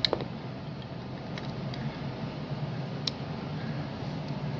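A steady low hum with a few light clicks from a small soldered circuit board being handled.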